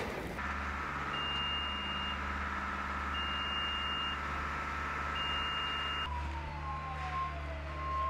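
Reversing alarm on a snow-clearing loader beeping, a steady high tone about a second long three times, over the low steady run of a diesel engine. About six seconds in, a lower, shorter beep repeats and a siren slides down in pitch.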